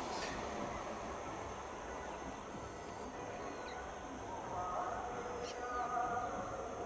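Indian Railways EMU local train approaching, heard as a low steady rumble under outdoor background noise, with a few short bird chirps.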